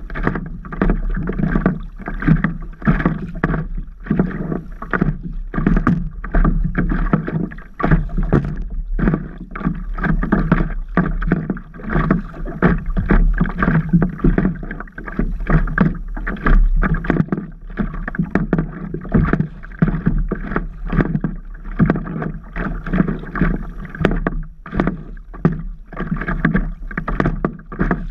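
Water splashing and lapping against a stand-up paddle board, in many quick, irregular splashes.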